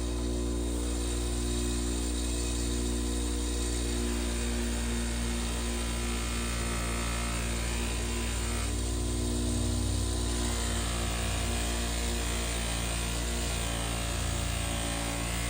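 An old bench grinder running steadily with a buffing wheel, with a steady low motor hum, as a knife blade is polished against the wheel with buffing compound.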